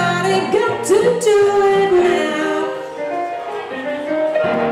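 Live blues played on a hollow-body electric guitar and an electric stage keyboard, with bending, sliding notes.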